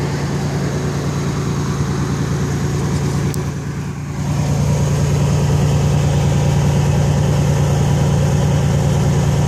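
Nissan 300ZX Z31 turbo's V6 idling steadily with an even low pulse. The sound dips briefly about three and a half seconds in, then runs a little louder.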